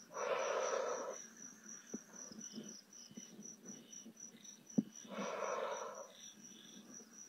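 Crickets chirping steadily in a fast, even high-pitched pulse, about four chirps a second. Over them come two louder breathy hisses, each about a second long, one at the start and one about five seconds in, and a few faint clicks.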